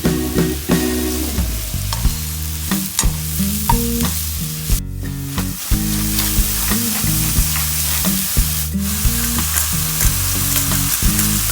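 Food sizzling in a hot frying pan while being stirred, with frequent short clicks and scrapes of a utensil against the pan.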